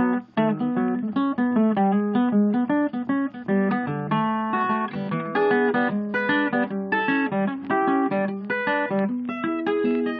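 Background music: a solo blues guitar picking a quick run of notes.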